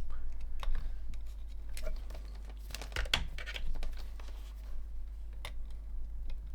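Handling noise: scattered small clicks and scrapes as multimeter test probes are moved onto diode leads on a circuit board, over a steady low hum.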